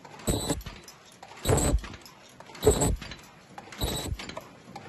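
Aupwit paper cup forming machine running through its production cycle: a short burst of mechanical knocking about every 1.2 seconds, four strokes in all.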